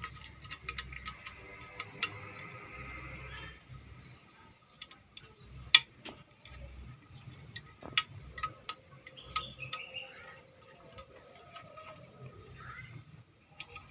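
Irregular clicks and taps of small hard objects being handled, with a sharp knock about six seconds in and another about eight seconds in.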